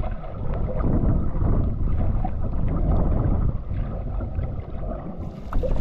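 Wind buffeting the microphone in a gusty, uneven rumble over the sounds of a canoe being paddled along a creek.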